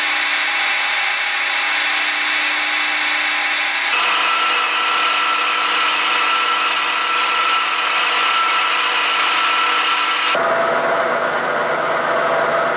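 Metal lathe turning down a steel axle, the cutting tool grinding along the spinning shaft with a steady whine. The tone changes abruptly twice, about four seconds in and again about ten seconds in.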